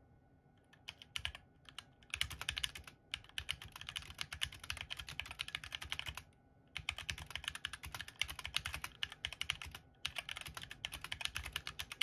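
Typing test on a HyperX Alloy Origins 60 mechanical keyboard with HyperX Red linear switches: a few scattered key presses at first, then fast, steady runs of key clacks with two short pauses.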